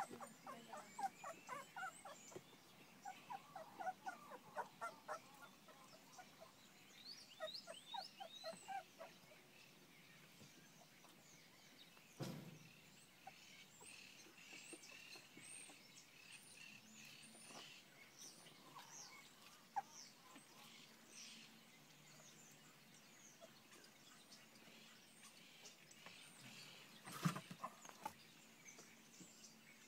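Young puppies squeaking and whimpering faintly as they wrestle, in quick runs of short squeaks mostly in the first third, with thinner high chirps later and a couple of soft bumps.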